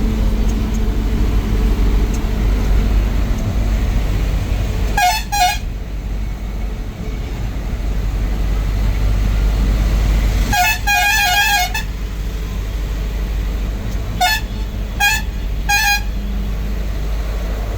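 Bus horn honking over the steady low rumble of the moving bus: two quick honks, then a longer pulsing blast about halfway through, then three short honks near the end.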